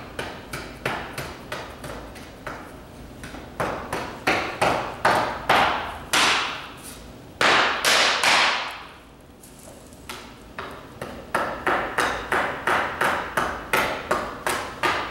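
Claw hammer striking a wooden board lying on a concrete floor again and again, denting the wood to distress it. About halfway through there is a long scrape of the claw across the wood, and near the end a faster run of blows, about three a second.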